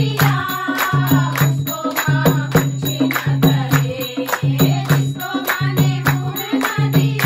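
Group of women singing a Hindi devotional bhajan together, accompanied by a dholak drum and hand claps keeping a steady beat.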